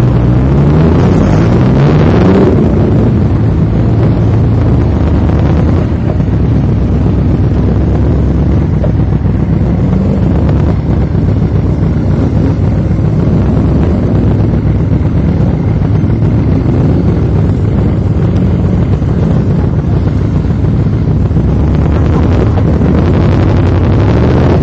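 Motorcycle engine running at low speed, its pitch rising over the first couple of seconds as it accelerates and then holding steady, with wind rumbling on the microphone.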